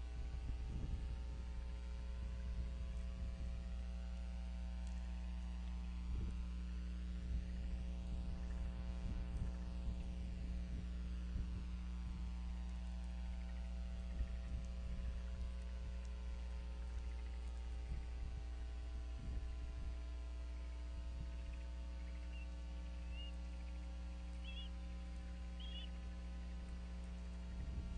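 Steady electrical mains hum with a stack of evenly spaced overtones, with irregular low rumbles underneath. A few faint, short high chirps come near the end.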